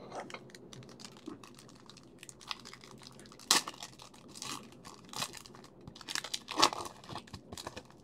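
A foil trading-card pack wrapper is torn open and crinkled by hand. It makes an irregular run of crackling tears and rustles, loudest about halfway through and again a little before the end.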